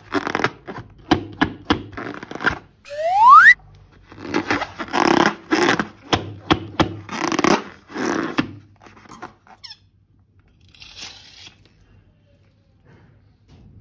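Slime-filled rubber balloon being handled: quick clicks and squishing, one rising squeak about three seconds in, then a run of squelching strokes that die away after about nine seconds.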